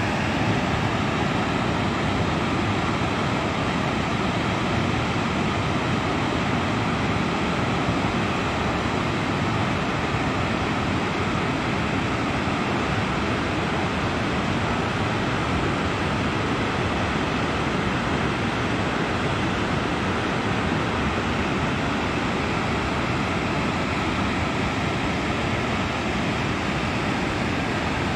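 Glacial lake outburst flood: muddy floodwater rushing down a rocky gully, a loud, steady rushing noise that does not let up.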